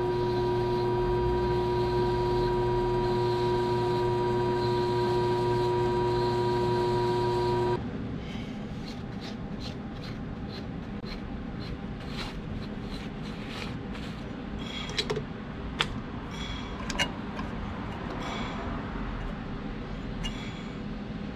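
Small metal lathe running steadily, its motor giving a whine of several fixed tones, which stops suddenly about eight seconds in as the lathe is switched off. After that come scattered clicks and light knocks as the cue and chuck are handled by hand.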